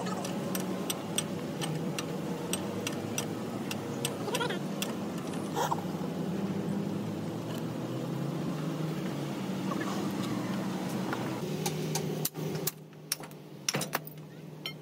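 An engine running steadily under many sharp clicks and knocks. The engine noise cuts out abruptly about twelve seconds in, leaving scattered clicks, then returns near the end.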